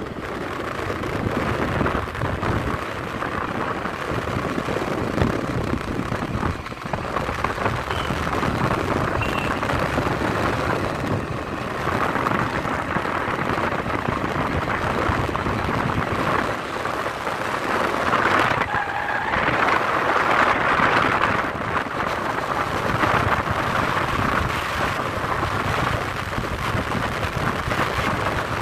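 Steady road and wind noise of a moving vehicle, with no distinct engine note, swelling a little about two-thirds of the way through.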